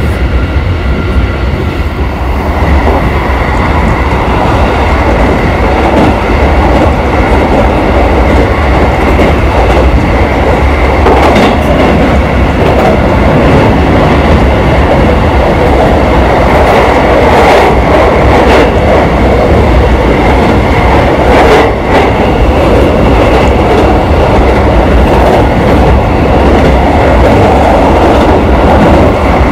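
JR Kobe Line commuter train running at speed, heard from inside the carriage: a steady rumble of wheels on rails with a thin high tone held over it, and a few brief clacks in the middle stretch.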